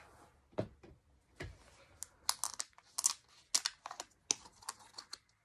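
Small plastic deli cups of feeder mealworms being handled, with a snap-on lid worked open: a few scattered plastic clicks, then a quick run of sharp clicks and crackles that stops near the end.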